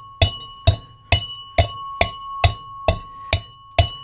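Metal pestle pounding quartz in a brass mortar, a little over two strikes a second, nine in all. The mortar rings with a steady high tone between strikes as the gold-bearing quartz is crushed to free the gold inside.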